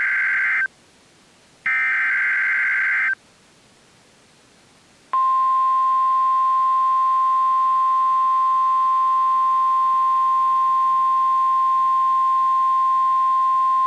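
NOAA Weather Radio Emergency Alert System signal: two short bursts of warbling SAME header data, then, about five seconds in, the steady 1050 Hz weather warning alarm tone begins and holds. It marks the start of a new severe thunderstorm warning.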